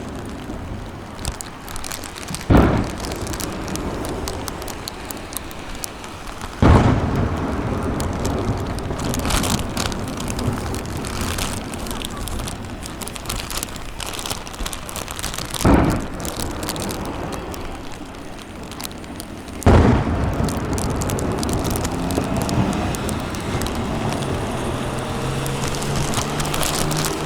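Aerial fireworks display: four loud booms of bursting shells, about 2.5, 7, 16 and 20 seconds in, over a continuous crackle of sparkling shells.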